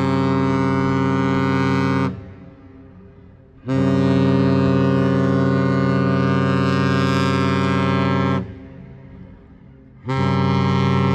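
A Great Lakes freighter's deep ship horn sounding a salute in long, steady blasts. One blast stops about two seconds in, a second runs from about four to eight seconds, and a third begins about ten seconds in. Each blast echoes briefly after it cuts off.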